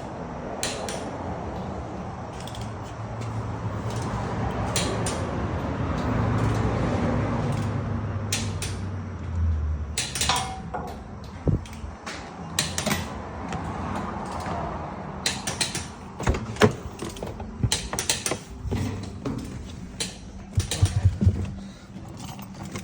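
1991 BMW 325i with its engine running, a steady mechanical hum, overlaid by irregular sharp clicks and knocks that become frequent about halfway through.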